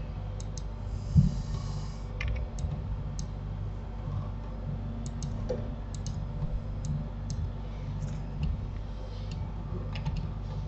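Computer keyboard keys and mouse buttons clicking irregularly, a dozen or so short sharp clicks, over a steady low hum. A dull low thump about a second in is the loudest sound.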